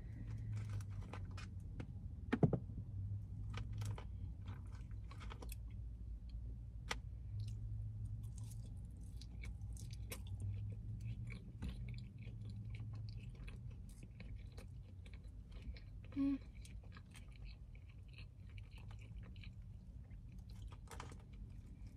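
Close mouth sounds of someone chewing cheese-covered fries, with many small soft clicks over a low steady hum.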